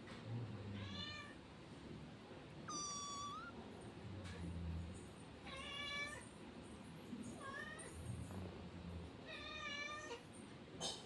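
Young kitten mewing: about five short, high-pitched mews a couple of seconds apart, one ending in an upward lilt.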